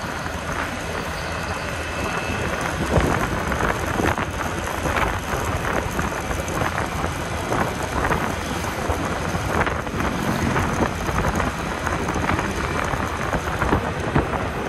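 Wind buffeting the phone's microphone on a moving Honda scooter: a steady rough rush broken by frequent gusty crackles. The scooter's running and road noise are mixed in beneath it.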